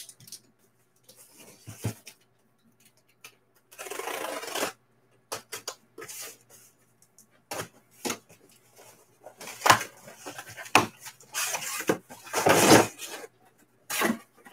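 Taped cardboard shipping case being opened by hand: the tape cut and cardboard flaps scraping and rustling, in separate bursts about a second long, with several sharp knocks and taps between.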